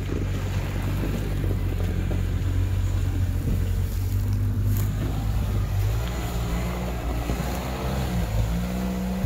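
Six-wheeled ATV's engine running under load as it churns through bog mud, its note shifting about halfway through.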